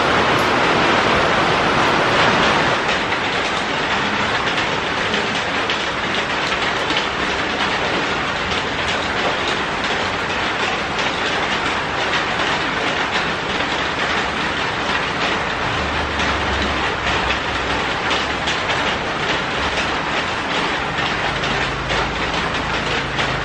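Heavy rain pouring down, a steady hiss.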